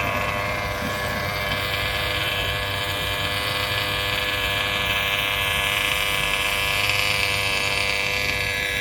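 Several 1/10-scale radio-controlled race cars running together, a steady high-pitched whine of their motors.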